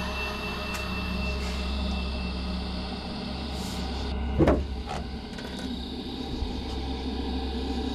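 A loud thump about halfway through, with a lighter knock half a second after it, over a steady low hum.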